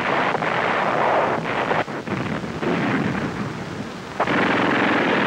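Battle sound on an old war-film soundtrack: a dense rumbling noise of distant explosions and gunfire, with a few sharp cracks near the middle. About four seconds in it turns louder and steadier.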